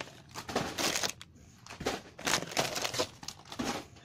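Plastic snack packets crinkling as they are handled and shifted about in a cardboard box, in several short rustling bursts.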